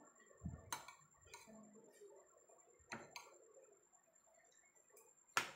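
Metal spoon and fork clinking against a ceramic plate of rice, a few sharp clicks with the loudest near the end.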